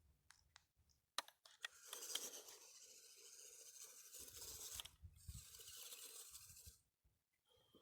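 A few faint clicks, then several seconds of faint scratchy rustling and scraping, broken briefly in the middle.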